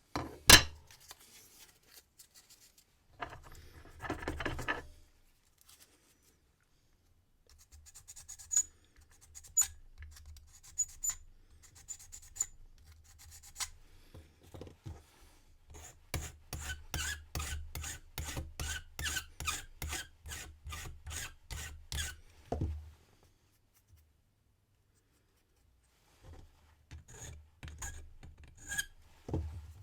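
Hand file rasping across a brass key blank being impressioned for a wafer cam lock. It runs in bouts, with a steady run of strokes at about two a second in the middle, and a few sharp knocks between bouts.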